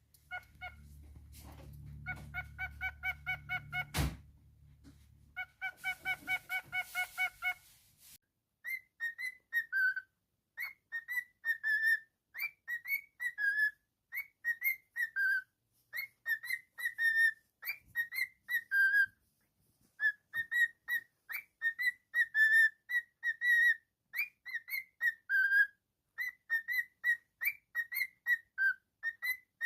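Cockatiel whistling a tune in short, chirpy, bending notes, strung into phrases. It opens with a run of rapid, evenly repeated notes over a low hum before the whistled phrases begin.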